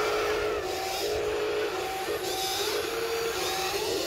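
Electric motors of a Huina 583 radio-controlled wheel loader whining in short on-and-off spurts as it drives and works its bucket into dirt.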